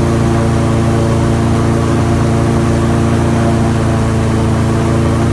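Airboat engine and its large air propeller running loud and steady at an even pitch.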